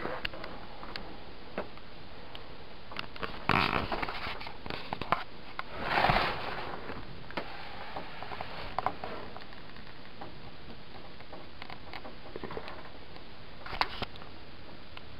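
Steady hiss with scattered faint clicks, broken by two short noisy bursts about three and a half and six seconds in, and a few more clicks near the end.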